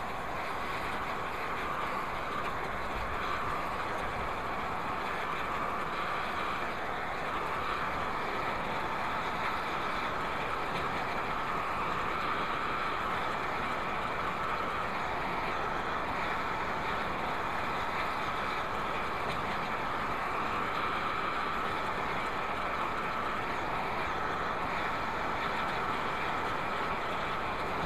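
Oxy-acetylene heating torch burning with a steady, even hiss as it preheats a cast-iron die plate for bronze brazing.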